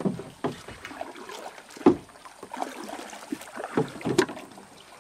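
A hooked toman (giant snakehead) thrashing at the surface beside a small boat: irregular splashes and knocks, the loudest about two seconds in.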